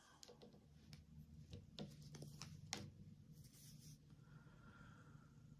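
Near silence: faint room tone with a low hum and a scatter of soft clicks and taps.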